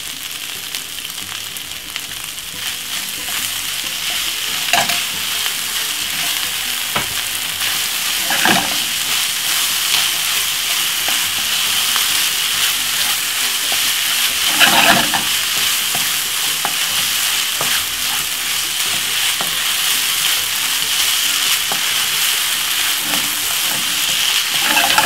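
Fried rice with vegetables sizzling in a hot nonstick frying pan as a wooden spatula stirs and turns it. The sizzle is steady, with a few louder scrapes of the spatula, about five, eight and fifteen seconds in.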